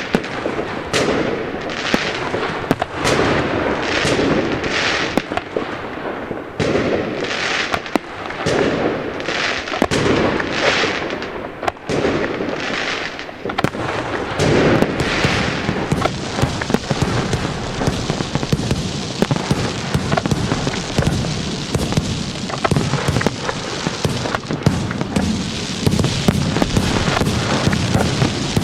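Fireworks going off. For about the first half, separate bursts follow one another every half second to a second, each with a crackling tail. Then they merge into a dense, continuous crackle with a low rumble underneath.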